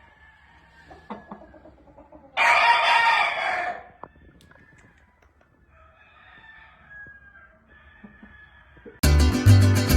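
A game rooster crows once, a harsh crow about a second and a half long, a couple of seconds in, followed by fainter calls. Guitar music starts near the end.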